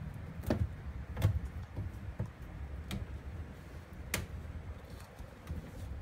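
About five sharp taps and knocks, spread over several seconds, as a baby Asian small-clawed otter's claws and paws strike the refrigerator's plastic crisper drawer and glass shelf while it climbs inside, over a steady low rumble.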